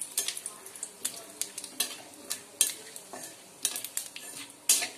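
Metal spatula scraping and knocking against an aluminium kadai while stirring a tempering of cumin seeds, dried red chilli and bay leaves in hot mustard oil, which sizzles lightly underneath. The knocks come at irregular intervals, the loudest near the end.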